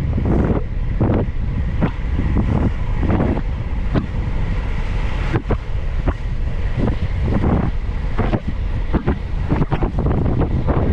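Wind buffeting the GoPro Hero 11's microphone on a fast bicycle descent: a loud, gusty low rumble with irregular surges.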